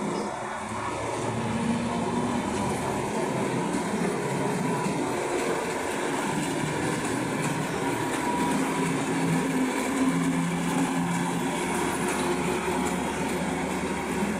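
Diesel locomotive running light past at low speed: a steady engine drone whose tone shifts a little in pitch as it passes, with rail noise underneath.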